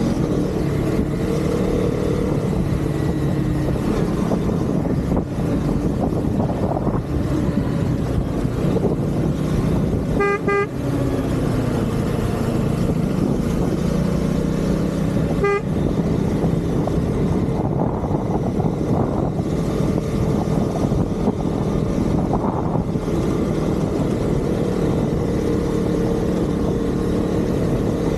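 Husqvarna Vitpilen motorcycle engine running under way, its pitch rising and falling with the throttle, over road and wind noise. A vehicle horn beeps about ten seconds in and once more, briefly, a few seconds later.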